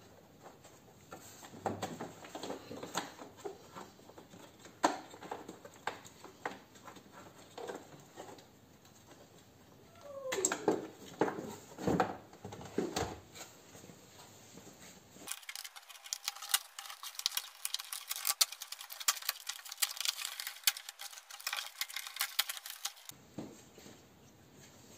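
Plastic door trim panel of a Peugeot 407 being handled and lifted off the door, giving scattered light clicks and plastic clatter. A few louder knocks come about halfway through.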